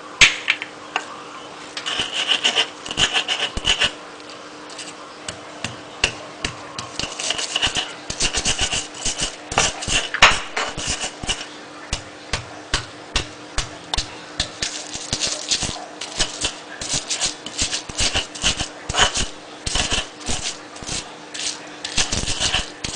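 Stone pestle grinding and pounding a spice paste of shallots, garlic, coriander and palm sugar in a stone mortar (Indonesian cobek and ulekan): a rapid, uneven run of scraping and knocking strokes, stone on stone, several a second.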